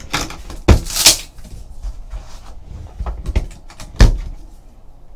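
Unboxing a sealed Panini National Treasures card box: handling scrapes and a series of sharp knocks as the box is handled and its rigid lid is lifted off. The loudest knocks come just under a second in and again about four seconds in.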